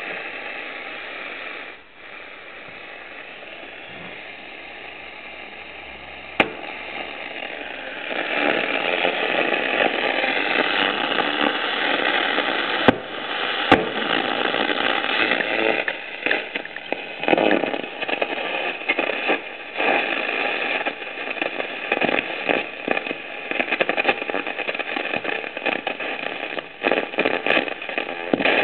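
FEDHA 63 tube radio's loudspeaker giving hiss and crackling static while tuned between stations, the noise growing louder about 8 s in and then swelling and dipping rapidly, with a few sharp clicks.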